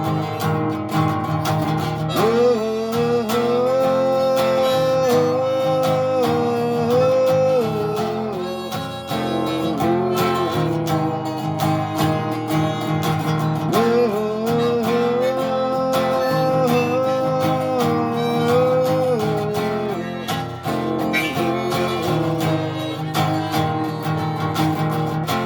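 Acoustic guitar strumming a slow instrumental song intro, with a sustained melody line sliding between held notes over the chords in two long phrases.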